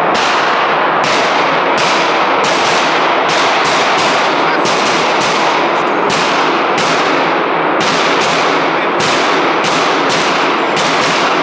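Gunfire at a shooting range: a steady stream of shots, about two a second at uneven spacing, each with an echoing tail over a constant loud din.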